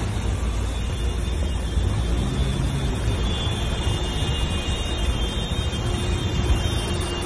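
Floodwater rushing along a street in a steady wash of noise, over a steady low rumble.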